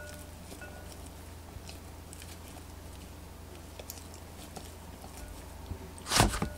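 Hands folding and pressing a soft ball of bread dough, working in chopped onion and parsley: quiet sticky squishes and small clicks, with one louder thump near the end.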